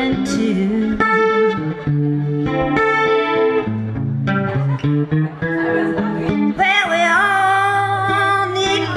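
Live blues music: guitar playing, with a high lead line that bends in pitch coming in about seven seconds in.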